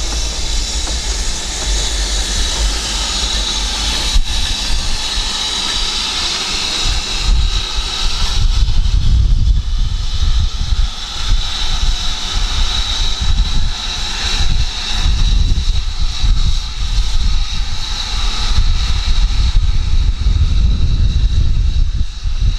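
Steady mechanical roar with a high hiss and a held high tone, while wind buffets the microphone in low, uneven rumbles that grow stronger about eight seconds in.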